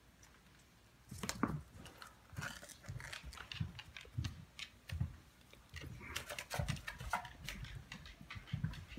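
Long-haired cat gnawing and clawing at a tennis ball, a run of irregular scratchy clicks and soft thumps starting about a second in.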